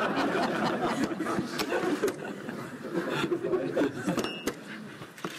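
Rapid clicks and clacks of chess pieces being set down and the chess clock being tapped in a very fast game, over onlookers' chuckling and murmuring. A brief high beep sounds about four seconds in.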